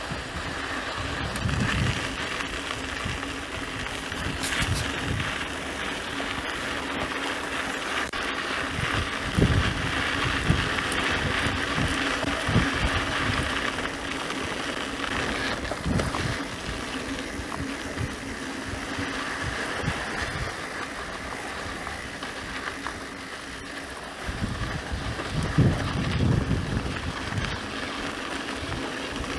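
Mountain bike being ridden on a sandy dirt track: steady tyre and drivetrain noise, with irregular low buffeting from wind on the microphone.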